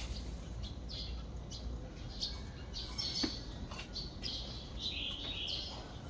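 Small birds chirping in short, high calls, many of them falling in pitch, coming more often in the second half.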